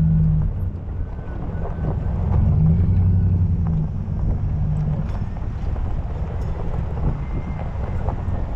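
Jeep running along a rough dirt track, its engine note swelling a few times as it drives, with scattered knocks and rattles from the body and tyres over the bumps. Wind buffets the microphone.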